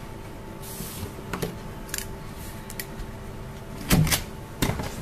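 Scattered knocks and clicks of papers and objects being handled at a wooden lectern, over a steady low room hum. The loudest knocks come in a quick pair about four seconds in.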